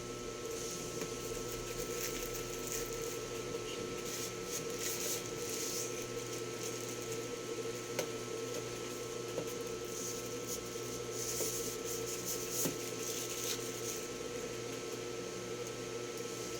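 Steady background hum with intermittent rustling and a few light clicks from packaging being handled during an unboxing.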